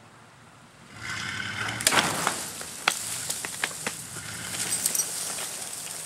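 Tree stump being torn loose and dragged across the ground by a steel cable, starting about a second in: roots snapping and soil crackling and crunching, with several sharp cracks. A low engine drone from the pulling pickup truck runs underneath.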